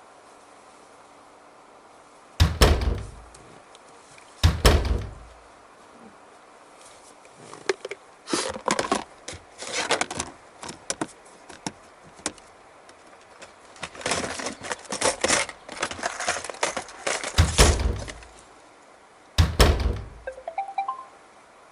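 Handling noise of gear: four heavy, hollow thumps, two a few seconds in and two near the end, with a stretch of clicking and rattling between them.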